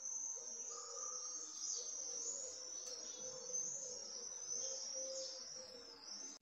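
Dense, continuous high-pitched chirping of summer birds and insects, with a faint steady lower tone underneath.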